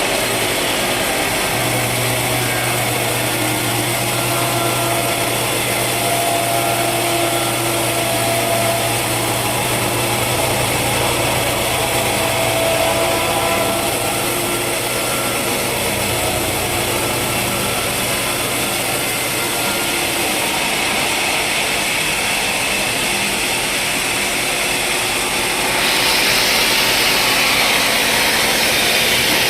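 Sawmill machinery running steadily, with a steady low hum through much of it; near the end the sound grows louder and hissier.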